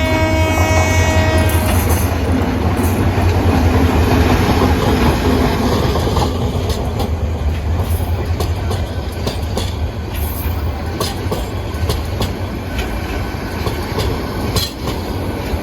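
Intercity train horn holding one steady note that stops about two seconds in. The train then runs past with a loud steady rumble, and from about six seconds in its wheels click over the rail joints.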